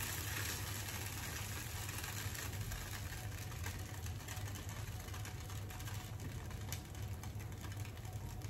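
Wooden spatula scraping fried sweet corn kernels out of a frying pan onto a ceramic plate, with a few light clicks and scrapes over a steady low hum.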